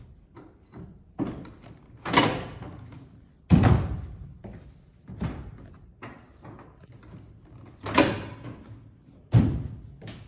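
Folding seats of retractable bleachers being knocked down one after another: four loud bangs with a short ring after each, with lighter knocks of footsteps on the risers in between.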